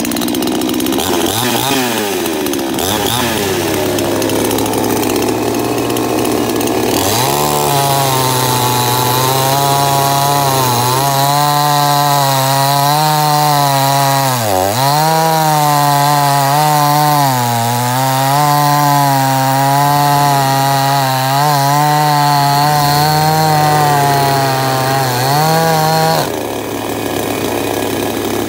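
Salem Master two-stroke gas chainsaw revving up and down, then held at full throttle cutting through a log, its pitch wavering and dipping as the chain bites into the wood. The engine drops back off full throttle near the end.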